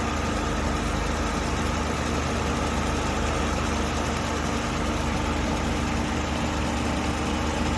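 Car engine idling steadily with the air conditioning switched on while the system is being recharged with refrigerant.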